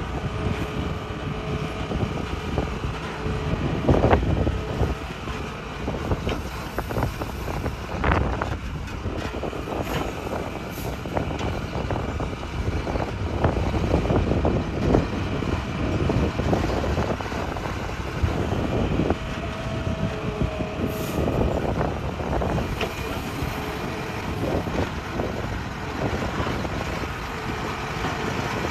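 Hitachi excavator running under load as it digs rock: a continuous engine drone with irregular clanks and scraping from the bucket against rock, the loudest knocks about four and eight seconds in.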